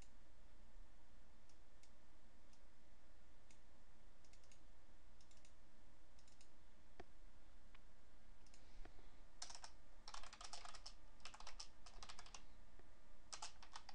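A few faint, scattered clicks, then from about two-thirds of the way in, quick runs of typing on a computer keyboard.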